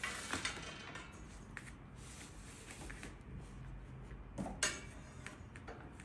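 White metal wire frames of an IKEA MULIG drying rack being handled and shifted on cardboard: light metallic clinks and rattles, with a cluster just at the start and a sharper knock about four and a half seconds in.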